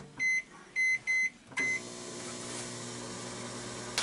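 Microwave oven keypad beeping four times as its buttons are pressed, then the oven starting up about one and a half seconds in and running with a steady hum.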